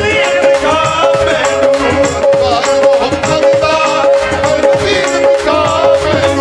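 Devotional folk music: a melody that bends in pitch over a steady held note, with quick hand-percussion strokes throughout.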